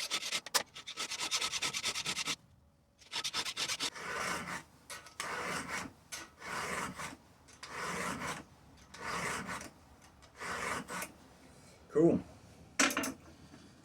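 File rasping across a chainsaw chain's cutters during sharpening: a quick run of short strokes, then slower single strokes at about one a second.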